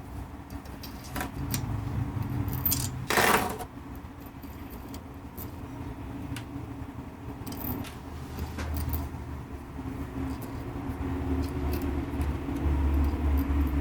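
Small metal washers and bearings clicking and clinking as they are handled and stacked onto bolts, with a brief louder rustle about three seconds in.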